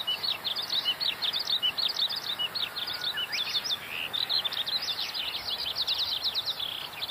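Birds chirping continuously in quick, high, repeated notes, several a second.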